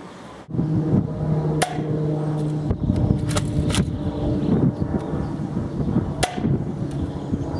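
Adventure Force Sentry X2 foam-ball blaster being primed and fired repeatedly: several sharp clacks, about a second or more apart, over a steady low background rumble.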